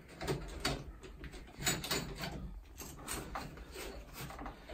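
Irregular clicks, knocks and scrapes of a central heating flush adapter being worked onto the isolating valves of a Fernox Omega magnetic filter.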